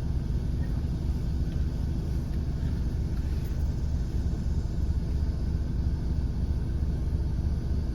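Lowered Honda Jazz being driven over a rocky dirt track: a steady low rumble of engine and tyres.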